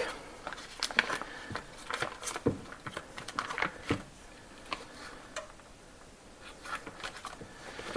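Light, irregular taps and clicks of a knife cutting through a block of butter on the kitchen counter.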